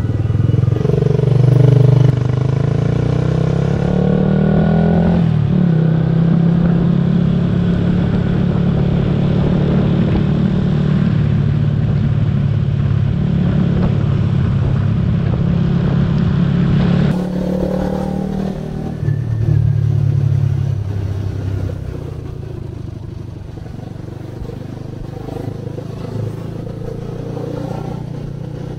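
Motor scooter engine running while riding in traffic, with wind noise on the camera microphone; its pitch rises as it speeds up over the first five seconds, then holds steady. About two-thirds of the way in the sound changes abruptly as the recording switches to the other action camera's microphone, and it turns quieter and thinner.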